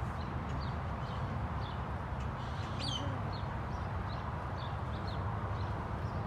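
Birds chirping: short high chirps repeat a couple of times a second over a steady low background rumble, with one louder, falling chirp about three seconds in.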